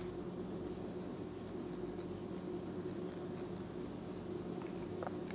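Faint, sparse little clicks of a disc detainer pick turning the discs inside a Rosengrens 32A81S safety deposit lock, over a steady low hum. The clicks are the discs being rotated and counter-rotated as they are felt for their gates.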